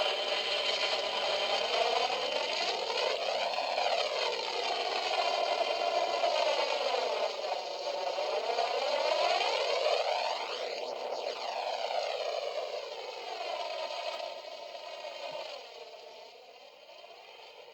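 Millennium Falcon alarm clock's speaker playing a steady rushing whoosh whose tone sweeps slowly up and down, fading away over the last few seconds.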